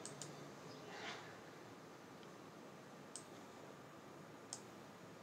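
A few faint, sharp computer clicks over quiet room tone: two at the start, then one past three seconds and one near the end, from the mouse and keys working a spreadsheet.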